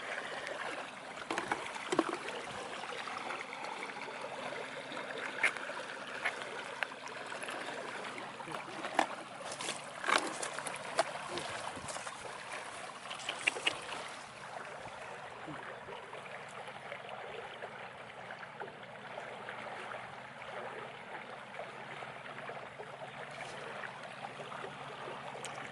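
Flowing water running steadily, with a scattering of sharp clicks and knocks in the first half.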